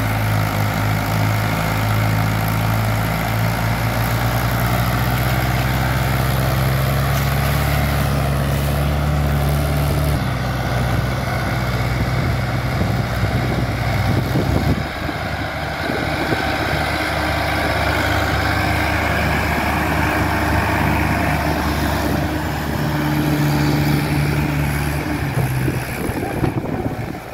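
Tractor diesel engines running steadily under load while towing a second tractor and a loaded sugarcane trolley. The engine note changes about ten seconds in and again about fifteen seconds in.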